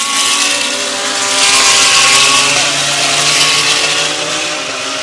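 GT3 race car engine at full speed passing by, swelling to its loudest about two seconds in and then fading.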